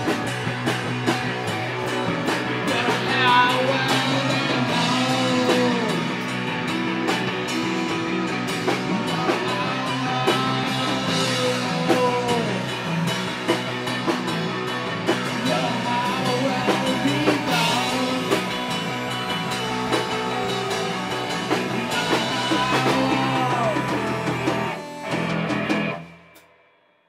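Band playing rock music: guitar through effects with drums over a steady low drone, with gliding notes. The music fades almost to nothing near the end.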